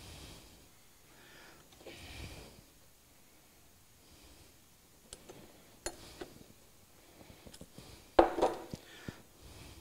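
Small clicks and knocks of plastic and metal parts handled by hand as a felt seal and bearing pieces are fitted into a plastic wheel hub, with a louder clatter about eight seconds in.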